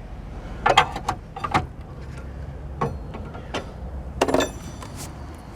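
A series of short clicks and knocks, about seven of them spread over a few seconds, with a longer clattering knock about four seconds in. They sound like tools or metal parts being handled and knocked against the car's underside during the suspension work.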